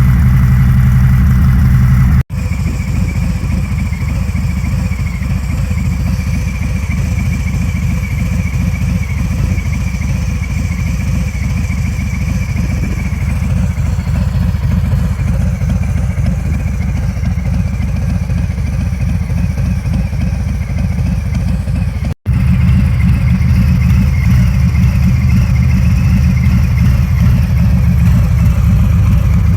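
Harley-Davidson Fat Bob's Milwaukee-Eight 114 V-twin idling steadily through Jekyll & Hyde mufflers, a deep, even exhaust note. The sound drops out for an instant twice, about two seconds in and again near the end.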